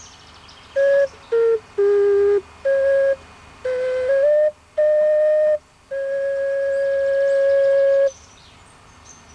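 Clay ocarina playing a slow hymn melody in clear, flute-like single notes with short breaths between them, ending on a long held note about eight seconds in. Faint birdsong follows.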